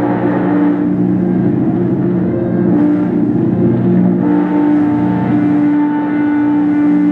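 Loud experimental drone music from a modified electric string instrument run through electronics: a dense, steady wall of sound with several held tones, and a higher note entering about four seconds in.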